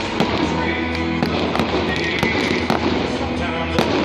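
Fireworks cake firing a rapid string of shots, with sharp pops and crackling star bursts, over background music with steady low notes.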